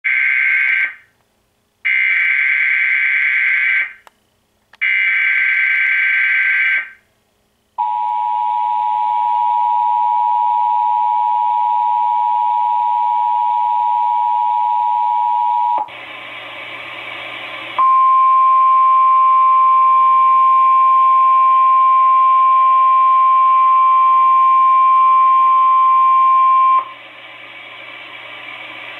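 Emergency Alert System test on NOAA Weather Radio: three short warbling SAME data bursts open it. Next comes the steady two-tone attention signal for about eight seconds, then a brief hiss. A single steady 1050 Hz weather-radio alert tone follows for about nine seconds and gives way to hiss near the end.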